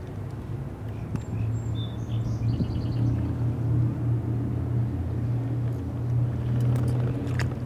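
An engine's steady low hum that swells through the middle and eases off near the end. A few bird chirps come about one to three seconds in, and a few light clicks sound near the end.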